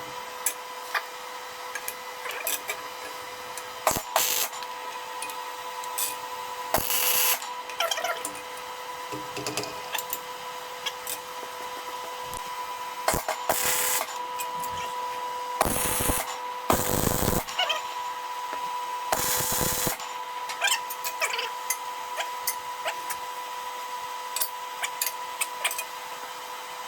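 Metalworking in a workshop: several short bursts of a power tool or welding arc, each lasting about a second, among clicks and knocks of metal being handled, over a steady electrical hum.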